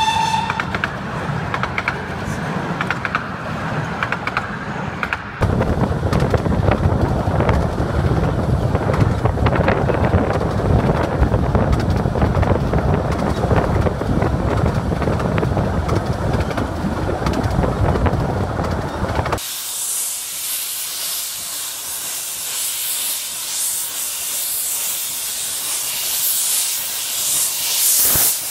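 Miniature-railway coaches rolling and clattering past, then a louder, steady rumble and clatter of wheels on track heard from inside a moving coach. About two-thirds of the way through, this gives way to a loud hiss from a steam locomotive venting steam at the platform.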